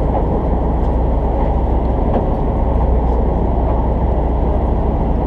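Party boat's engine running, a steady low rumble with a deep hum underneath, and a few faint light clicks over it.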